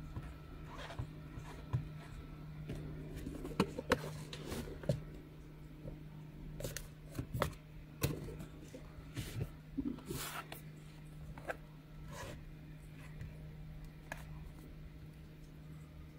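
Handling noises from an unboxing: a white cardboard box being opened and handled, with short taps, scrapes and rustles of cardboard and of the plastic goggles on a cutting mat, most frequent in the middle. A steady low hum runs underneath.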